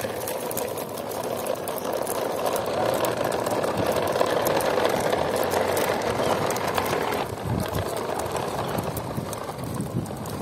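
Plastic toy trucks' wheels rolling over rough asphalt, a steady rumbling rattle that eases off about seven seconds in.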